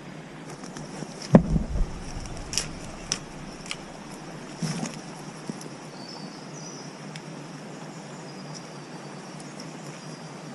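Steady high-pitched chirring of insects, with a few sharp knocks and thumps of handling, the loudest about a second in.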